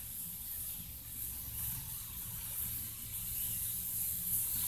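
Steady background hiss with a faint low hum, room tone with no distinct events.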